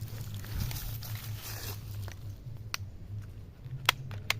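Rustling and handling noise, then a few sharp clicks, the loudest near the end, from plastic toys being handled.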